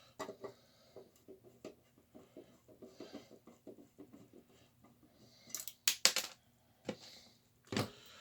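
Screws being worked out of a metal equipment chassis with a screwdriver: a run of small, quick clicks and scrapes, then a few louder metal clicks and clinks near the end.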